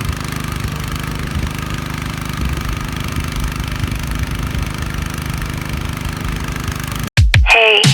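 Small boat's engine running steadily at a constant speed. Near the end it cuts off suddenly and music comes in.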